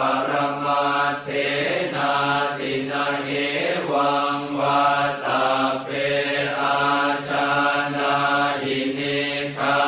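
Thai Buddhist funeral chant in Pali: voices chanting in an even monotone on a steady low pitch, phrase after phrase without pause.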